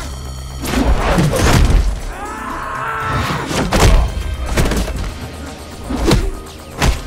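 Sound-effect punches and kicks in a movie fight: a quick run of hard hits and thuds with swishes in between, irregularly spaced, over a dramatic music score.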